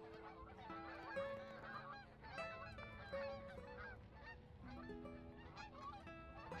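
A flock of geese honking in flight, many short calls overlapping. Soft music with a few held notes plays underneath.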